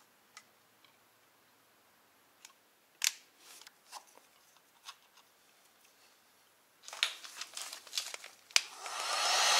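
Scattered small clicks and taps of wires and tools being handled, with a denser cluster of clicks about seven seconds in. Near the end a heat gun switches on and its fan hiss builds up, to shrink heat-shrink tubing over a soldered wire joint.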